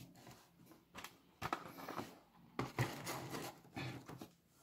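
Handling noise: a series of irregular soft rustles and light knocks.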